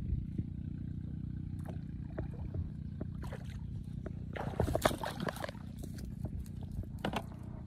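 A wet cast net being hauled out of muddy water and heaped on the bank: rustling mesh with dripping and splashing, loudest about five seconds in and again briefly near the end, over a steady low hum.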